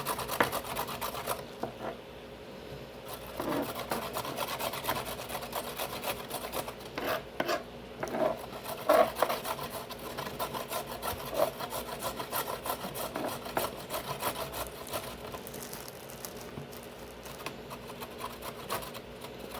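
Kitchen knife cutting vegetables on a cutting board: a steady run of quick knife strokes and scrapes, with a few louder knocks.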